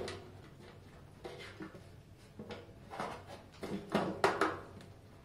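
Metal clinks and scrapes as a fuel gauge sender unit is fitted into the opening of a metal fuel tank: a string of separate sharp knocks with a short ring, the loudest a close cluster about four seconds in.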